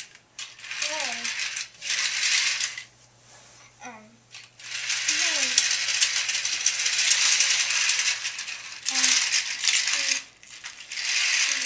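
Plastic toy train cars and track clattering and rattling as a child pushes them by hand along plastic track, in long stretches with short pauses.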